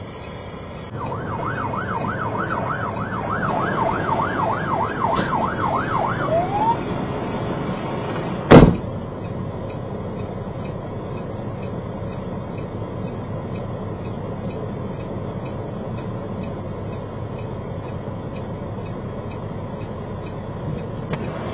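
An emergency siren on a fast yelp, wailing up and down about three times a second for some five seconds and ending in a rising sweep. A single loud sharp thump follows about eight and a half seconds in. The steady rumble of the truck's engine and cab runs underneath.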